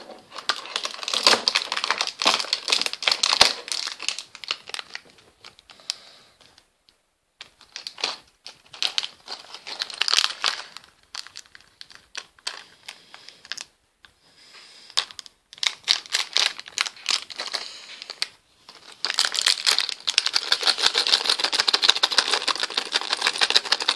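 Plastic packaging crinkling and small plastic LEGO pieces clicking as they are handled, in irregular bursts with a few short pauses and a denser stretch of crinkling near the end.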